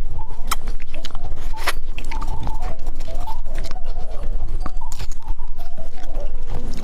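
Close-miked chewing of a small mushroom-shaped gummy candy, with irregular sharp mouth clicks and smacks as the tough candy is bitten; it is hard to bite.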